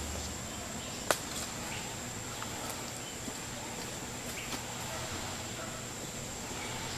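Quiet outdoor ambience in scrubland with a steady high-pitched whine throughout, and one sharp click about a second in.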